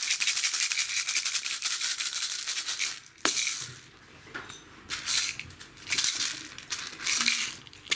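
Puppies rummaging in a box of toys: a dense rattle and clatter of small hard toys, continuous for about three seconds, then in shorter bursts.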